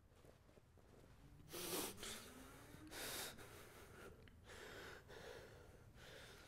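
A man breathing heavily and faintly: a few sharp breaths, the strongest about a second and a half and three seconds in, with weaker ones after.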